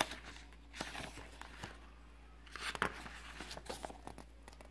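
Page of a picture book being turned and handled: a sharp knock at the very start, then papery rustles and swishes about a second in and again near three seconds, with a small click in the second one.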